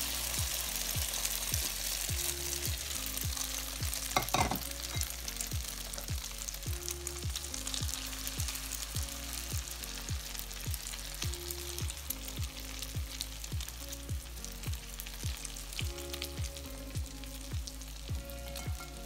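Beaten egg mixture sizzling as it fries in hot oil in a non-stick pan, loudest as it is poured in and easing to a steadier sizzle as it is stirred. A brief clatter about four seconds in. Background music with a steady beat plays throughout.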